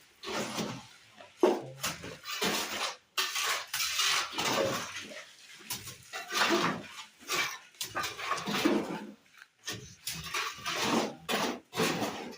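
Mason's trowel working cement mortar: a run of irregular scraping and clinking strokes.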